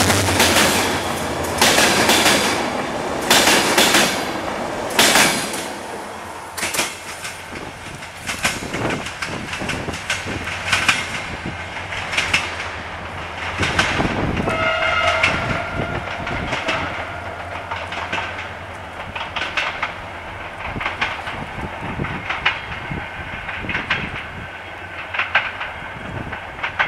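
Passenger coaches passing close, their wheels clacking loudly over rail joints, then the clatter fading as the train draws away. About fourteen seconds in, a locomotive horn sounds one steady note for about a second.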